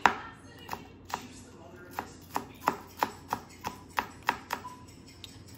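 Chef's knife chopping green onions on a plastic cutting board: sharp knocks of the blade on the board, about three a second, stopping shortly before the end.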